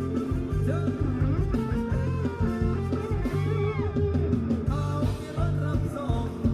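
Thai ramwong dance music from a live band: guitar and bass over a steady beat, with a melody line that slides between notes.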